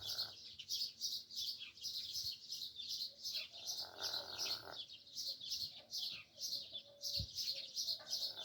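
Rapid high-pitched chirping, several short chirps a second, with a soft breathy sound about halfway through.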